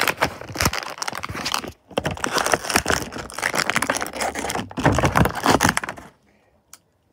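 Plastic toy packaging crinkling and rustling as it is handled close to the microphone while the figure is taken out; the crackling stops suddenly about six seconds in.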